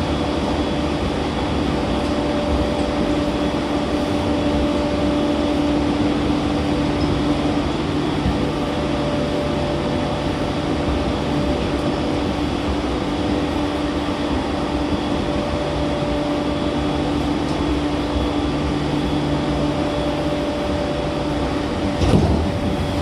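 E231-1000 series commuter train running at a steady speed, heard from inside the car: a constant rumble of wheels on track with a few steady, unchanging tones from the running gear. A single loud knock about 22 seconds in.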